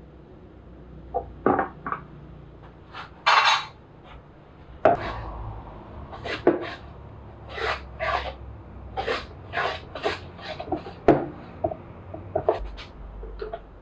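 Hand tool working a pine board: a series of short, irregular rasping strokes of wood being scraped or shaved, roughly one or two a second.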